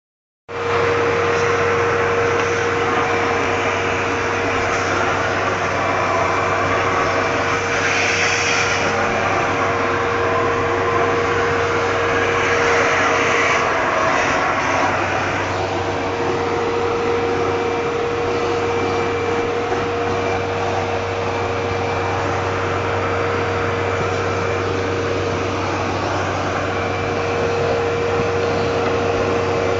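Vacuum cleaner running steadily, a loud even whoosh with a steady hum and whine, cutting in abruptly about half a second in.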